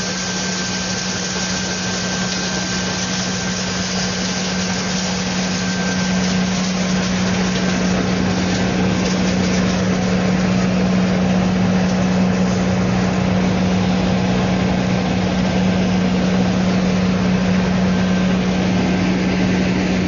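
Wood chipper running steadily, a constant low hum over a dense mechanical noise, growing a little louder about seven seconds in.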